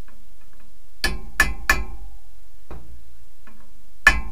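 Hammer blows on the steel of a drive shaft U-joint, each with a short metallic ring: three quick strikes about a second in, then another near the end.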